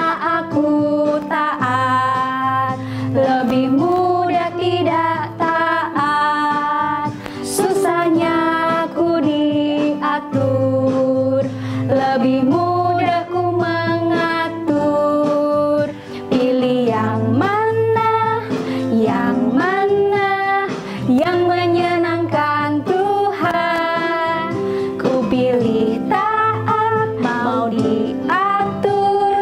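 Two women singing a children's worship song in Indonesian, with guitar accompaniment.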